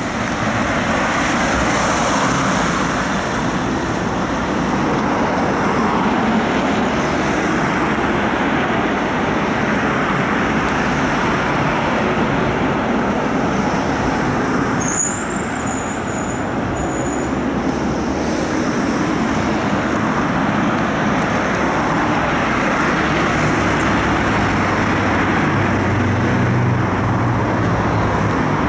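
City road traffic noise: a steady wash of passing cars' engines and tyres. A brief high squeal comes about halfway through, and a low hum near the end.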